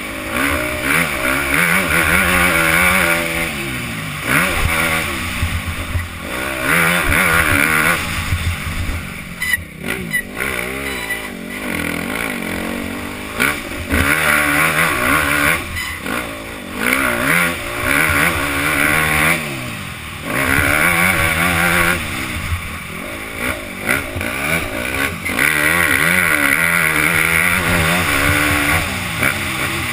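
Motocross bike engine heard from the rider's helmet, revving up and dropping off again and again as the rider works the throttle around the track. There is a brief drop in loudness about ten seconds in.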